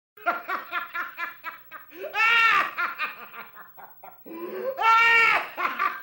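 A person laughing heartily: quick rhythmic ha-ha bursts that twice swell into long, high-pitched whoops of laughter.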